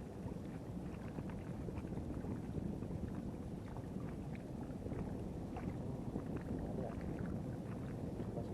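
Seawater washing and lapping against the rocks at the edge of a breakwater: a steady low wash with many small scattered splashes and ticks.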